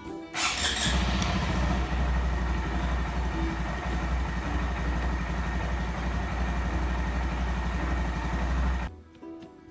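Honda Monkey 125's single-cylinder four-stroke engine idling steadily with an even low pulse. It comes in suddenly just after the start and stops abruptly near the end.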